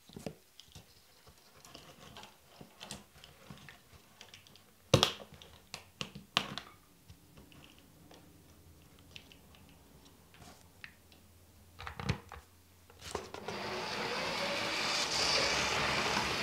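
Scattered clicks and knocks from hands handling the parts as the repaired cable is hooked up, with one sharp knock about five seconds in. About 13 seconds in, a LEGO 9-volt train starts running around its track with a steady running noise.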